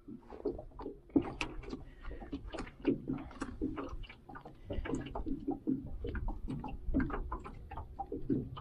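Irregular small knocks and clicks around a small aluminium fishing boat, several a second, over a low wind rumble.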